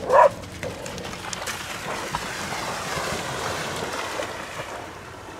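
Splashing as a person and two dogs run and wade through shallow seawater, a steady churning that is loudest around the middle and eases off near the end.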